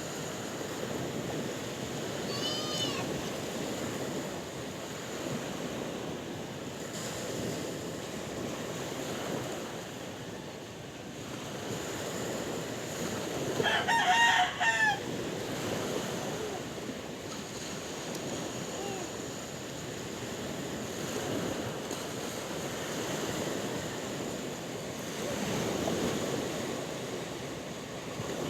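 Sea waves washing steadily, with a rooster crowing once about halfway through, the loudest sound here; a short high call is heard about three seconds in.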